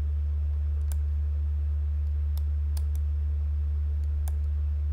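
Steady low electrical hum, with five small sharp clicks scattered through, two of them close together about halfway.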